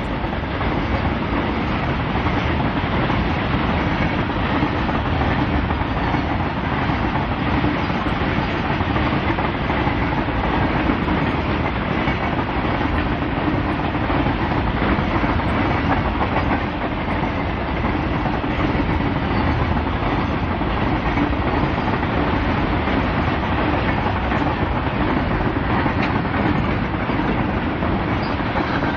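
Freight train of BCCN covered goods wagons rolling past close by: a steady, loud rumble of steel wheels clattering on the rails.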